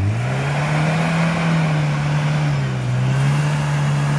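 Suzuki Samurai off-roader's engine held at high revs as it pushes through deep mud, with the tyres churning. The engine note holds steady, sagging briefly about three seconds in before picking up again.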